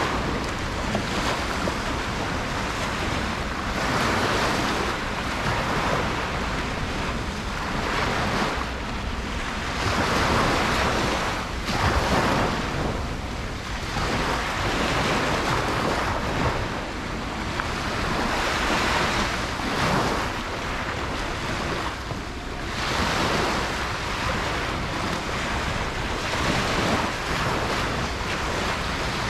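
Ocean waves breaking and washing up a beach, one surge of surf every few seconds over a steady wash, with some wind on the microphone.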